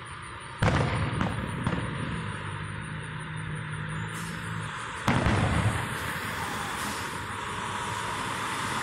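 Aerial fireworks shells bursting: a loud boom about a second in and another about five seconds in, each with smaller cracks and a rolling rumble after it. A car drives past near the end.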